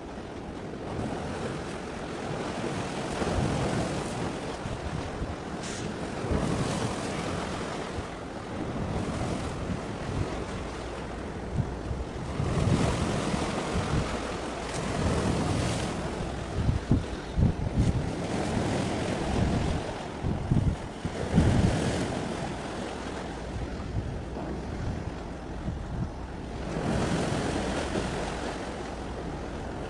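Sea waves washing in, swelling and falling every few seconds, with gusts of wind rumbling on the microphone, strongest in the middle.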